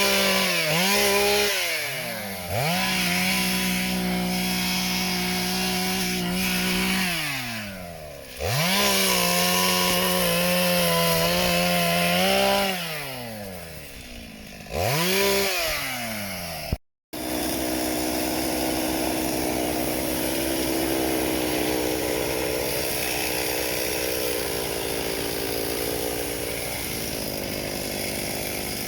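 Two-stroke chainsaw revved to full throttle four times, held high for a few seconds while cutting wood and dropping back toward idle between cuts. After a short break about 17 seconds in, a chainsaw runs steadily at a lower pitch.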